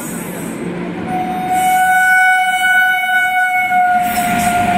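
WAG-7 electric locomotive's horn sounding one long steady note from about a second in as the train runs through, over the rising rush of the passing train.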